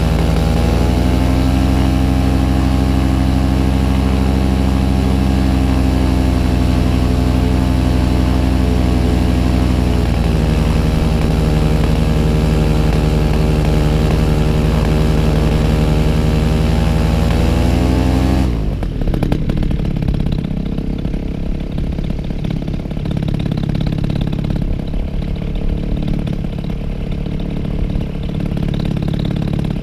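Paramotor engine running at a steady speed, its pitch dipping slightly about a third of the way in, then rising briefly before dropping abruptly to a lower, rough and uneven idle a little past halfway.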